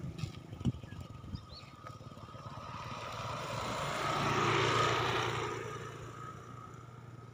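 A motorcycle passing by. Its engine sound grows over the first few seconds, is loudest about four to five seconds in, then fades away.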